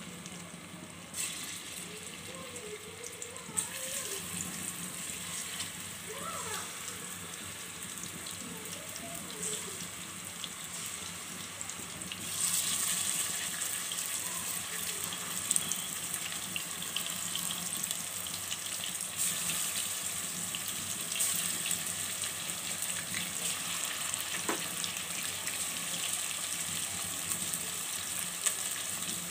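Marinated chicken pieces frying in shallow hot oil in a pot: a steady sizzle with fine crackling, getting louder about twelve seconds in as more pieces go into the oil.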